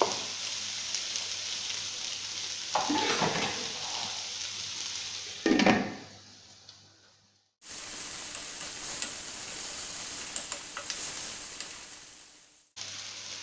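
Red onion slices sizzling in hot cooking oil in a wok while a wooden spoon stirs them, with a sharp knock about five and a half seconds in as a glass lid meets the pan. The sizzling dies away briefly after that, then starts again abruptly.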